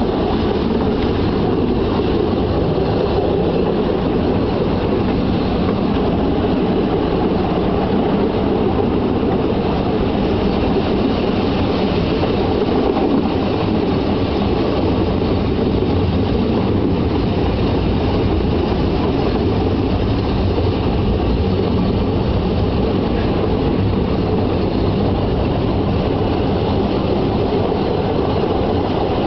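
Narrow-gauge train running steadily along the track, a constant rumble of wheels on rails and rolling stock, heard from aboard the train.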